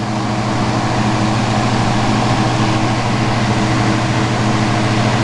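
Glassblowing torch flame hissing steadily as it heats borosilicate glass, with a steady low hum underneath.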